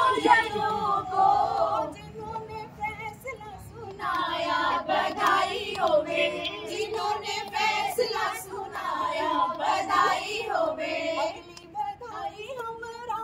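A group of women singing a devotional song together in chorus, with short pauses between lines, about two seconds in and again near the end.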